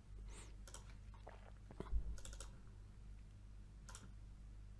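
Faint computer mouse clicks, a few scattered sharp clicks over a low steady hum.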